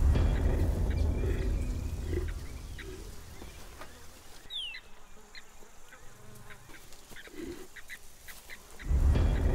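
Wild birds calling, with short chirps, a few honk-like calls and one falling whistle about halfway through. Under them is a loud deep rumble that starts suddenly at the start, fades over a couple of seconds, and starts suddenly again near the end.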